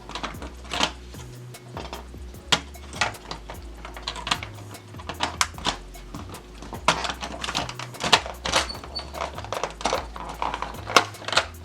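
Irregular hard plastic clicks and knocks from the parts of a Nerf Rival Takedown blaster being handled and pressed back into place against a stiff K25 spring, over background music.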